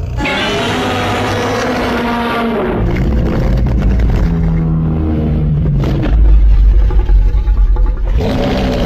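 A monster-movie sound effect that starts abruptly: a loud, sustained, machine-like sound with several pitched tones sliding up and down over a deep rumble that grows heavier about six seconds in.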